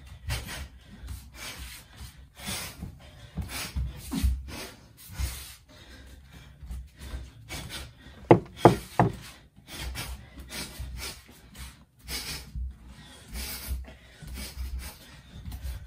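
Barefoot shadowboxing on a wooden floor: a steady run of short, sharp exhaled breaths with the strikes, over low thuds and rubbing of bare feet stepping and kicking on the boards. A quick cluster of louder knocks comes a little past halfway.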